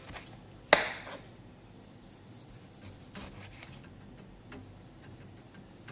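Kitchen knife cutting vegetables on a cutting board: one sharp knock about a second in, then a few softer, scattered taps of the blade on the board.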